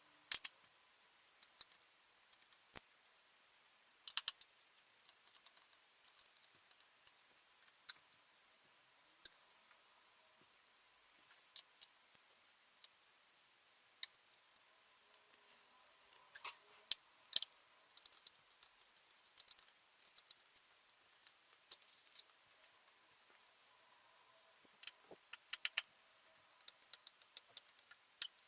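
Sharp plastic clicks and small taps from a Lenovo ThinkPad T420 laptop's parts being handled and pried apart by hand. They come irregularly, bunched in short flurries a few seconds in, in the middle and near the end.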